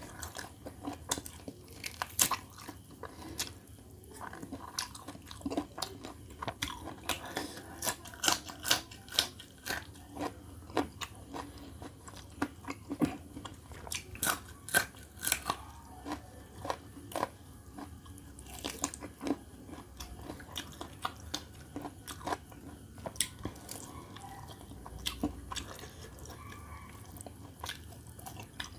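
Close-miked chewing and biting as a person eats roast chicken and raw green chillies, with many sharp, irregular crunches.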